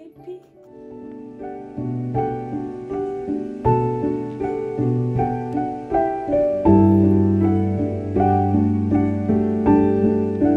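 Gentle piano background music, a steady run of notes that starts soft and grows louder, with deeper bass notes coming in about two-thirds of the way through.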